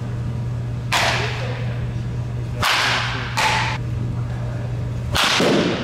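Four short swishes of a baseball bat swinging through the air: one about a second in, two close together near the middle, and one near the end, over a steady low hum.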